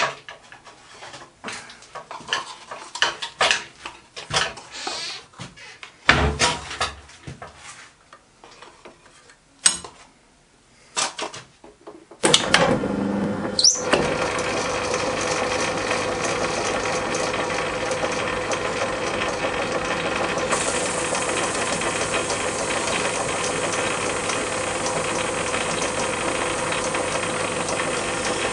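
Metal-working lathe starting up about twelve seconds in, with a brief rising whine, then running steadily with a disc clamped between the chuck and the tailstock centre. Before it starts there are scattered light knocks and clicks.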